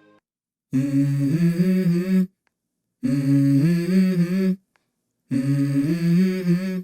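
Background music: a voice humming three short wordless melodic phrases, each about a second and a half long, with brief silences between them.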